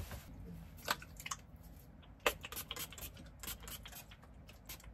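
Handling noise of small objects and clothing: scattered light clicks and rustles, the sharpest about a second and about two seconds in.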